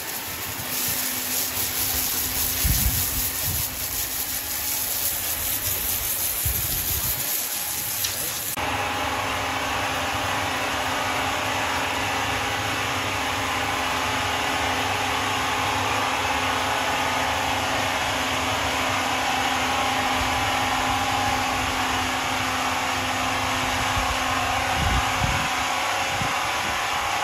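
Sawmill machinery running with a steady hum. About eight and a half seconds in, the sound changes suddenly to a fuller, hissier one, which then stays steady.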